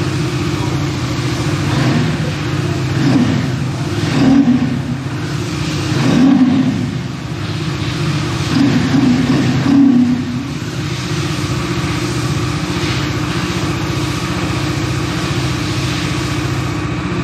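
Bajaj Dominar 250's single-cylinder engine running at idle, with a few short revs between about three and ten seconds in before it settles back to a steady idle.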